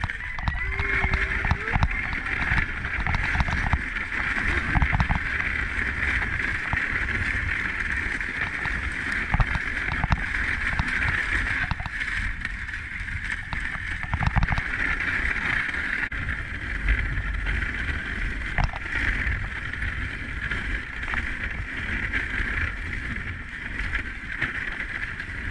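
Dog sled runners hissing steadily over packed snow as a husky team pulls the sled. Wind buffets the microphone in a low rumble, and the sled knocks now and then.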